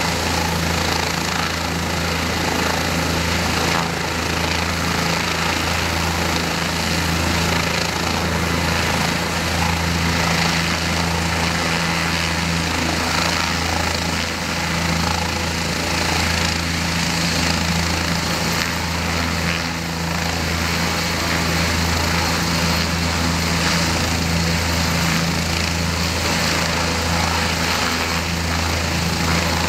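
Bell 206 helicopter's turboshaft engine and main rotor running steadily on the ground: a constant low rotor hum under a loud turbine rush, holding level with no change in pitch.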